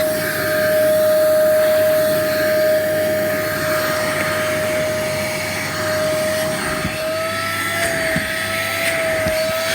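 Kärcher WD 3 P wet and dry vacuum cleaner running steadily with a high whine while sucking up dirt from a surface. The whine wavers slightly in pitch in the last few seconds, with a few faint ticks near the end.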